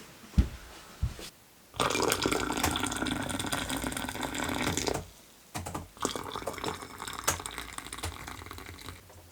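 Tea being poured into glasses in two pours, the first loud and about three seconds long, the second softer, after a few light knocks.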